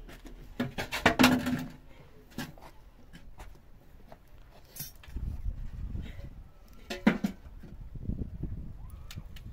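Cookware and utensils being handled, giving scattered clinks and knocks, thickest and loudest about a second in, with a single sharp knock about seven seconds in. A low rumbling noise comes in about halfway through.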